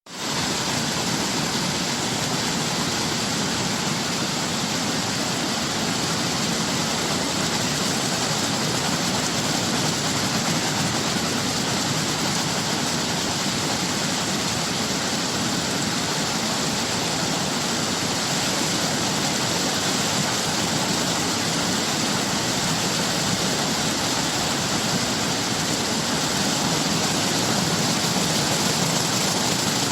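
Waterfall: water falling and rushing in a steady, even hiss that fades in at the very start and holds level throughout.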